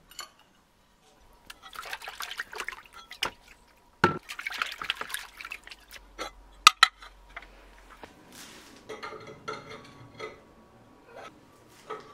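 Water splashing and sloshing in a plastic bucket as ceramic tiles are dipped and washed, with hard clinks and knocks of tile against tile and the bucket.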